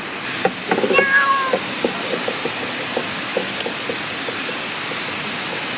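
A calico cat meows once, briefly, about a second in, over a steady background hiss.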